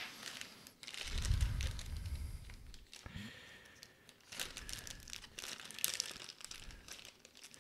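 Plastic packaging crinkling and rustling as it is handled, with many small crackling clicks and a dull bump about a second in.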